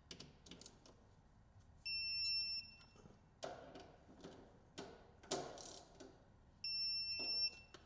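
Electronic torque wrench beeping twice, each a steady high beep of under a second, as the lower fender fasteners reach their torque specification. Short clicks and rattles of the tool on the fasteners come between the beeps.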